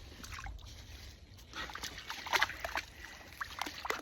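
Shallow creek water splashing and sloshing in irregular small bursts, a couple of louder splashes about halfway through and near the end.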